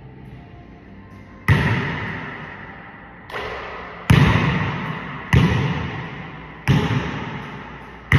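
A basketball dribbled on a hardwood gym floor: six bounces starting about a second and a half in, the second softer than the rest, each thud ringing on in the gym's echo.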